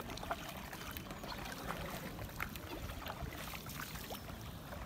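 Canoe paddles dipping and pulling through calm canal water, with small splashes, drips and scattered light clicks.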